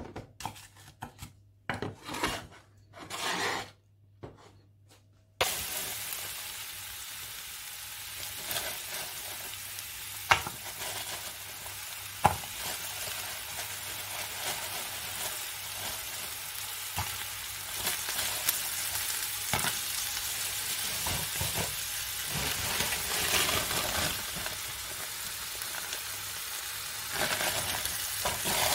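Diced onion frying in hot oil in a nonstick frying pan: a steady sizzle that cuts in suddenly about five seconds in, after a few short knocks of handling. A few sharp clicks sound over it as slices of parsnip are dropped into the pan.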